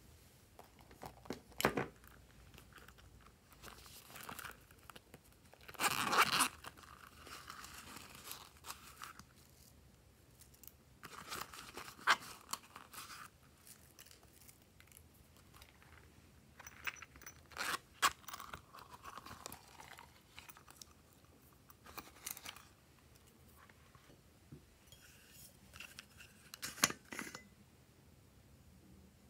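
Glitter, sequins and small beads being shaken and tipped out of containers onto slime in glass trays: a series of short handling bursts with quiet gaps between, the loudest about six seconds in.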